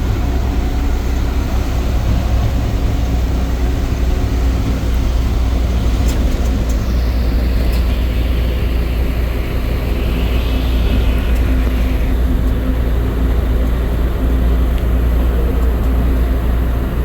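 Bus engine and road noise heard on a moving bus: a steady, heavy low rumble with no horn.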